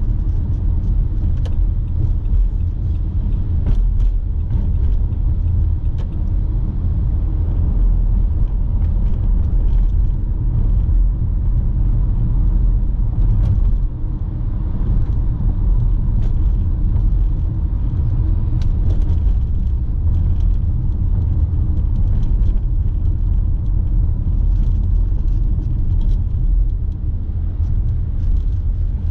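Car driving, a steady low rumble of road and engine noise with faint, scattered ticks.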